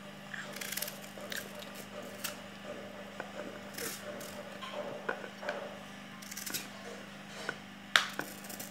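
Knife paring an unripe green mango by hand: soft scraping and cutting sounds with scattered small clicks, the sharpest near the end, over a steady low hum.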